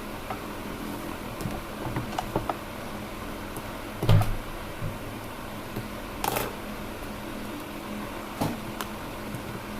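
A 4x4 cube's cardboard box being opened and handled: scattered clicks, taps and rustles of packaging, with a louder knock about four seconds in and a rustle a couple of seconds later.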